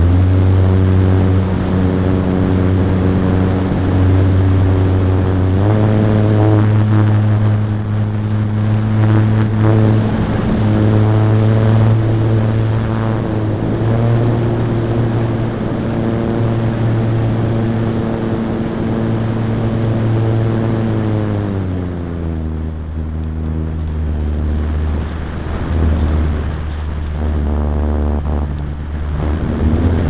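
Nose-mounted motor and propeller of a radio-controlled ASW 28 model glider, heard close up from onboard: a steady pitched drone. The drone steps up in pitch about six seconds in, then slides down to a lower note a little after twenty seconds as the throttle is eased.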